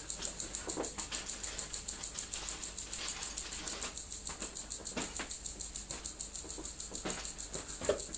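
A steady high-pitched trill of rapid, even pulses, about ten a second, with scattered soft rustles and light knocks of someone rummaging through tools and parts.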